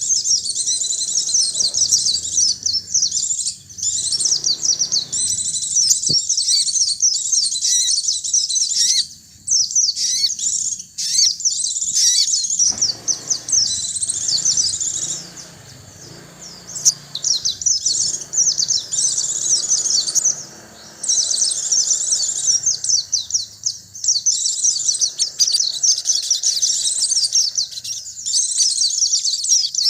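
Pleci (white-eye, Zosterops) and sogon birds chirping and twittering rapidly and continuously in high-pitched runs, broken by a few short pauses.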